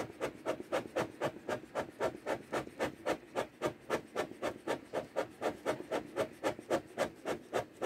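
Bee smoker's bellows pumped in quick, even strokes, about five puffs a second, fanning the freshly lit fuel in the open canister to get it burning.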